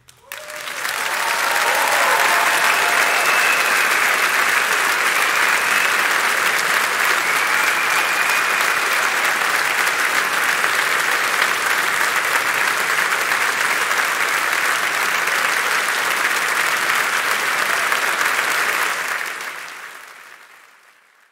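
A large concert audience applauding at the end of a song, building quickly to full strength and holding steady, with a few voices calling out in the first several seconds. The applause fades out near the end.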